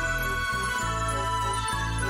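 Background music: an outro tune with held bass notes that change every half second or so under bright, sustained higher tones.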